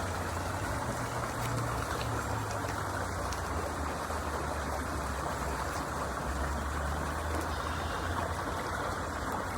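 Steady rushing of running water with a low, steady hum underneath.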